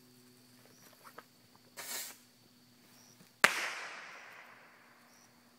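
A firework going off with one sharp bang about three and a half seconds in, followed by a long echo that dies away over about two seconds. A short hiss comes about a second and a half before the bang.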